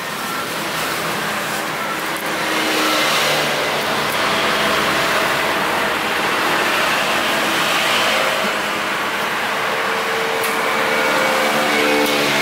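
Road traffic passing on a street: a steady wash of engine and tyre noise that swells about three seconds in and again about eight seconds in.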